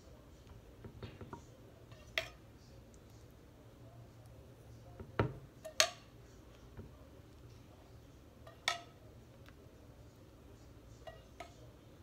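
A utensil clinking and knocking against a frying pan and a glass baking dish as sauce is spooned out: a handful of separate sharp clicks a few seconds apart, the two loudest about five to six seconds in.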